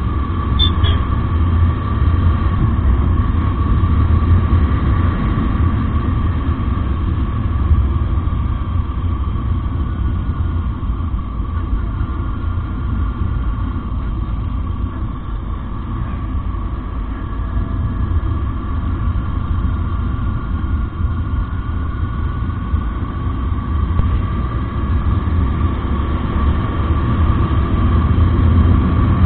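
A motorcycle ridden at a steady cruise, heard from a camera on the bike: a heavy, steady low rumble of engine and rushing air, with a thin steady whine above it. It grows a little louder near the end.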